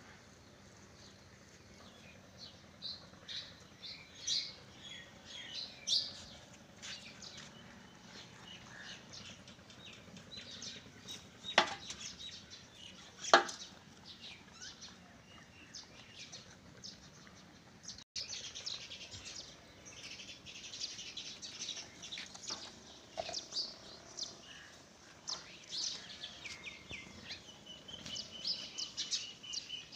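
Small birds chirping throughout in short high calls. Near the middle come two sharp knocks a couple of seconds apart, the loudest sounds.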